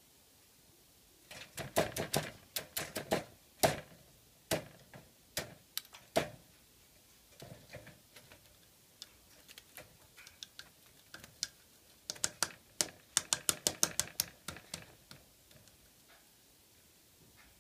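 Great spotted woodpecker pecking with its bill at a Siberian pine cone on a birch log: quick, irregular sharp taps in bursts, with two dense runs, one about a second in and another about twelve seconds in, and scattered single taps between.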